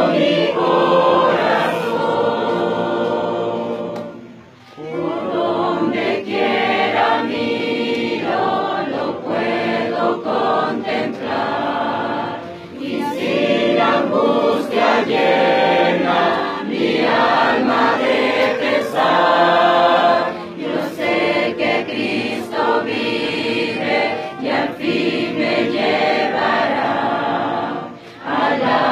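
A youth choir of young men and women singing a hymn together, with a few short breaks between phrases.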